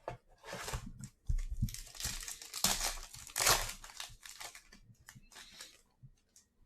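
Foil trading-card pack wrapper being torn open and crinkled by hand, in irregular crackling bursts that are loudest midway and die away about a second before the end.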